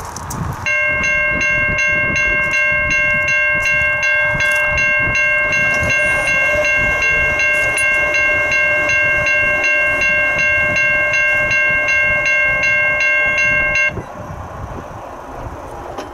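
Railroad grade-crossing bell ringing with rapid, even strikes as a train approaches, then stopping abruptly about two seconds before the end. Wind rumbles on the microphone underneath.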